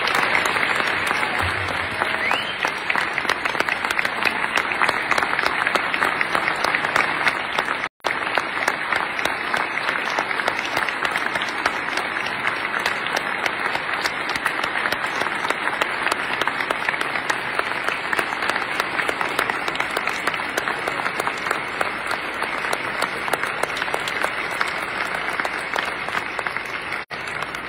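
A large audience giving a standing ovation: sustained, dense applause of many hands clapping, with a momentary gap about eight seconds in.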